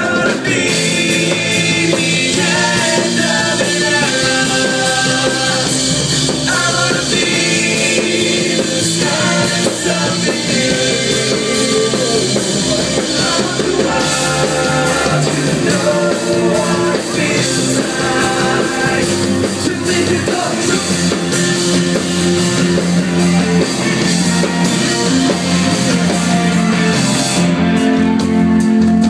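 A live rock band playing: electric guitars, keyboard and drums, with a lead singer.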